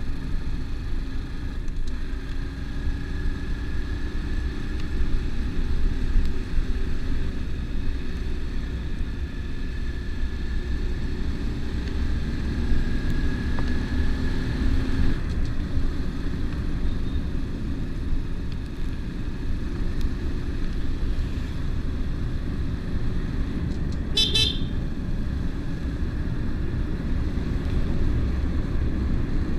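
Dual-sport motorcycle engine running at road speed, its pitch drifting up and down a little with the throttle, over steady wind and road noise. A short horn beep about three-quarters of the way through.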